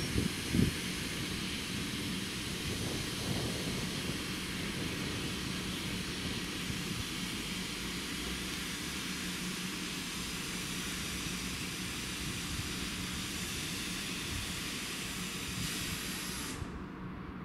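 German ICE high-speed electric trains at the station platform: a steady hiss with a low hum under it, and a couple of sharp knocks about half a second in. The hiss cuts off suddenly near the end.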